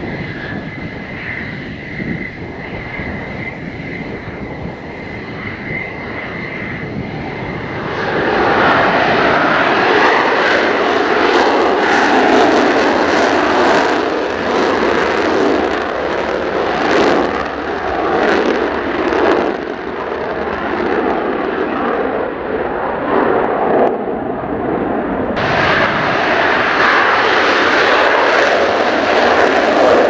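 Mitsubishi F-2 fighter jets taxiing, their F110 turbofans running at taxi power. A steady high whine gives way about eight seconds in to a much louder rushing jet roar, with gusty wind buffeting the microphone.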